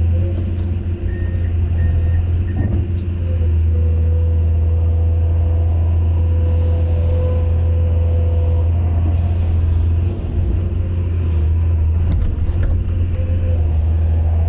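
Excavator's diesel engine running steadily with a deep drone, broken by a few sharp clicks or knocks.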